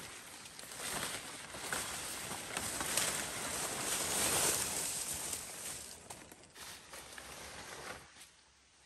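Rustling and crackling of large broad leaves and forest undergrowth as a person pushes and moves through the brush, with a few sharp clicks. It builds toward the middle and dies away near the end.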